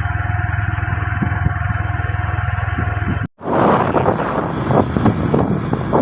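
Motorcycle engine running steadily. After a sudden cut about three seconds in, a rougher rushing noise takes over.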